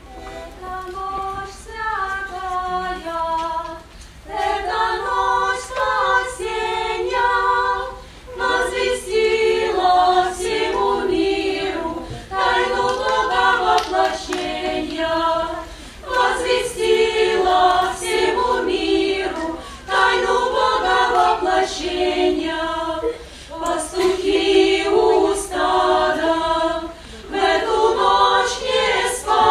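Choir singing a song in phrases of about four seconds, with short breaks between them; the singing is quieter at first and grows fuller about four seconds in.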